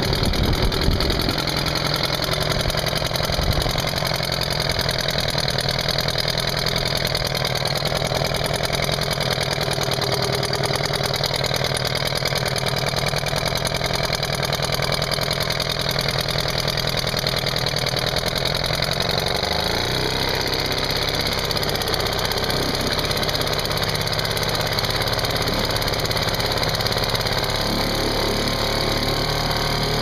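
British Seagull 40 single-cylinder two-stroke outboard motor running steadily with its propeller churning water in a test tank. The engine note changes about two-thirds of the way in.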